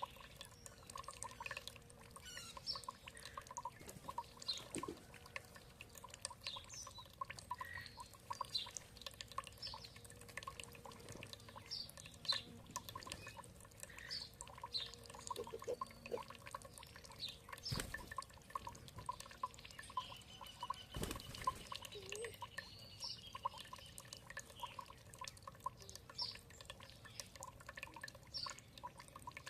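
Water dripping and trickling in quick, steady drops, with small birds chirping over it in many short calls and one longer held whistle about two-thirds of the way through. Two sharp clicks stand out in the middle.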